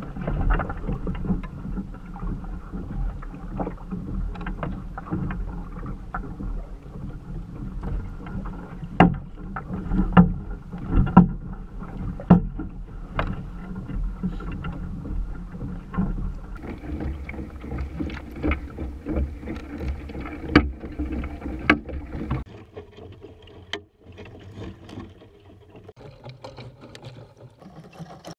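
Water sloshing against the plastic hull of a sit-on-top fishing kayak on choppy sea, over a low rumble and with many sharp knocks. It drops away to a much quieter hiss about 22 seconds in.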